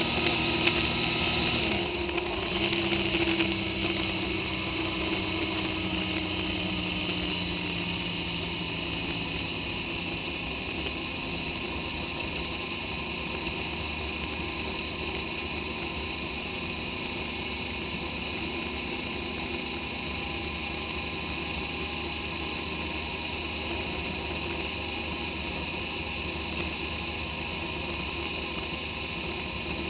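Motorcycle engine running on the road, its pitch falling over the first several seconds as the rider eases off, then settling into a steady cruise under a constant rush of wind and tyre noise.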